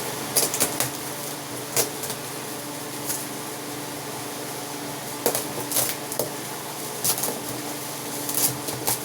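Scattered crinkles and sharp clicks of gift packaging being handled, over a steady mechanical hum.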